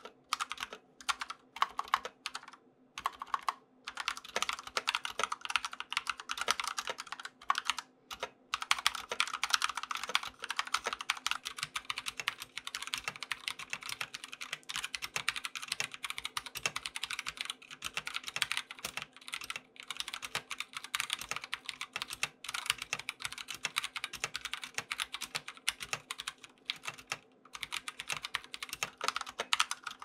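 Fast typing on Akko wireless mechanical keyboards, switching between the 65% 3068 with tactile Akko Orange switches and the 75% 3084 with tactile Gateron Orange switches. The key presses run as a dense, steady clatter, with a few short pauses in the first few seconds. The Akko Orange board sounds a little deeper in pitch and the Gateron Orange board a bit higher.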